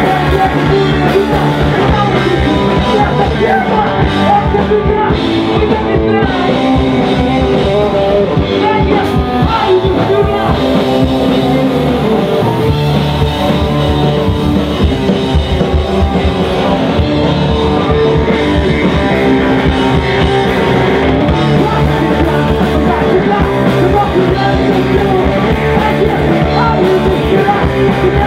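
A punk rock band playing live and loud: electric guitar, bass guitar and drum kit, with a vocalist singing into a microphone.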